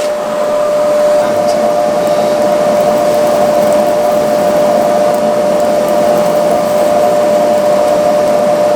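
Coal forge blower running steadily, a constant rushing blast of air through the fire with a steady whine from the fan, as the steel collar and bar are brought up to welding heat.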